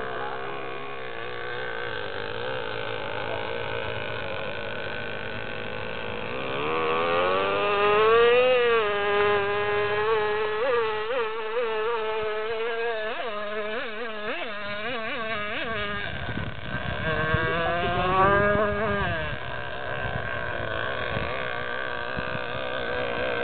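Single-cylinder 6.5 cc MVVS two-stroke model engine of an R/C speedboat running flat out as a high, buzzing whine. About seven seconds in it swells louder and its pitch rises then falls. It then wavers rapidly up and down for several seconds and swells and sweeps up and down once more near the three-quarter mark.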